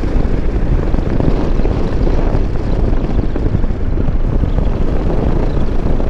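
Motorcycle running along at road speed, heard from the rider's seat: a steady rush of engine and wind noise with no change in pace.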